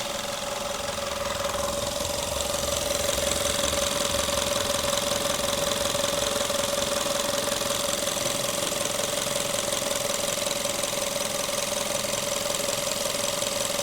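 Skoda car engine idling steadily, with a steady whine over it.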